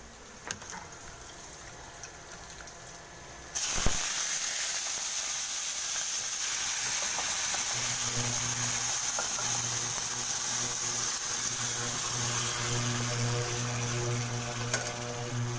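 Raw chicken pieces going into a hot wok and sizzling: a loud hiss starts suddenly a few seconds in and keeps going as the chicken sears, the first step of chicken afritada. A low steady hum joins about halfway through.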